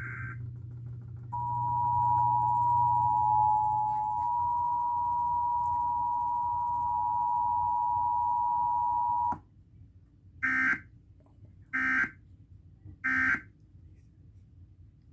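Emergency Alert System two-tone attention signal, two steady tones sounding together for about eight seconds and cutting off sharply. After a short gap come three brief warbling SAME digital data bursts a little over a second apart, the end-of-message code, with no voice message between them and the tone.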